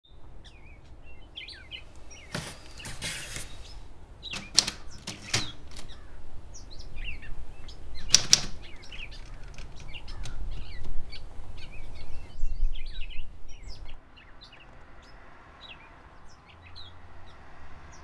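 Typewriter typebars striking paper in a handful of loud, sharp strokes in the first half, over small birds chirping throughout.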